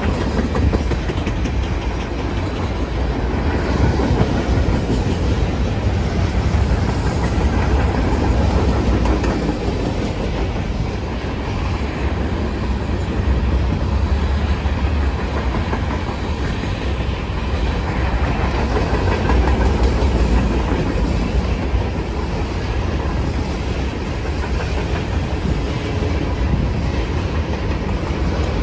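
Freight cars of a BNSF mixed freight train (tank cars, covered hoppers and boxcars) rolling past: steel wheels clicking over the rail joints over a steady low rumble.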